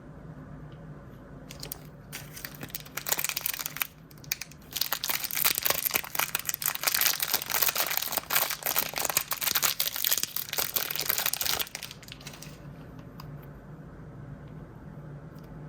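A plastic blind-bag wrapper being crinkled and torn open by hand: a few light crackles, then a long spell of dense crinkling from about three seconds in that stops abruptly near the end.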